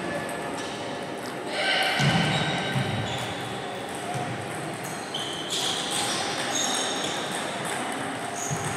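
Table tennis balls striking bats and tables, a scatter of short sharp clicks and high pings ringing in a large hall, with faint voices in the background.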